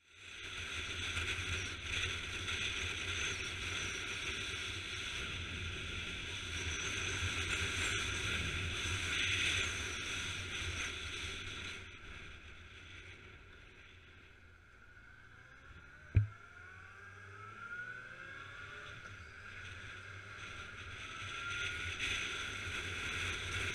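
Motorcycle riding heard from a bike-mounted camera: a steady rush of wind and engine noise that eases about halfway through, then the engine's pitch rises as the bike accelerates, with a single sharp knock partway through the rise.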